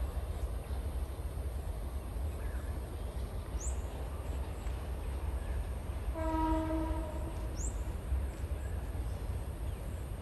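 A train horn sounds once for about a second, about six seconds in, over a steady low rumble.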